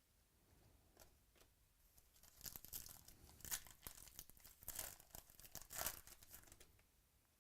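Crinkling and tearing of trading-card packaging being handled, a run of sharp rustles from about two seconds in until near the end.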